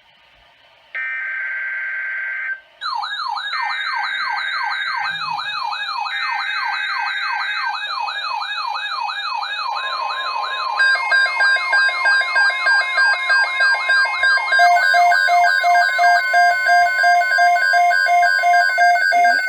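Emergency Alert System alert start on NOAA Weather Radio: three short bursts of warbling SAME header data tones. From about three seconds in, a wailing siren-like alert tone sweeps up and down about twice a second over them. About ten seconds in, it gives way to a steady weather-radio attention tone and pulsing electronic beeps, which continue to the end.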